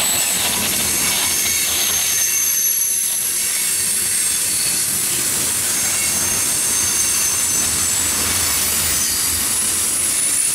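Loaded freight tank cars rolling past close by, a steady loud rumble of steel wheels on rail with high-pitched wheel squeal running over it.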